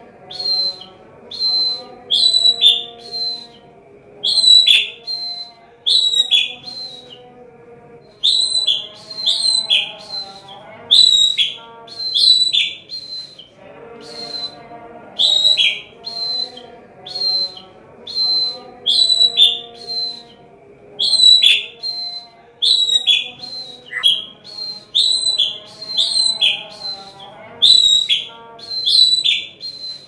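A caged murai batu (white-rumped shama) singing prenjak (prinia) calls it has learned to mimic: short, sharp chipping notes repeated in quick groups, one to two a second, without pause.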